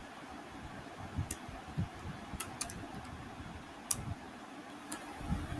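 About five sharp, scattered clicks from a computer keyboard and mouse, over a steady low background hiss.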